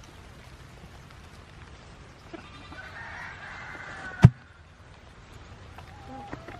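A goat bleating once for about a second and a half, cut off by a single sharp knock.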